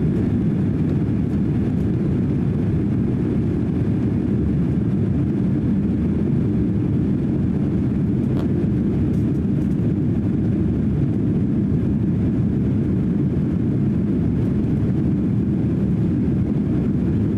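Steady cabin noise inside a Boeing 767-300 airliner climbing out after takeoff: an even, low roar of the jet engines and rushing air.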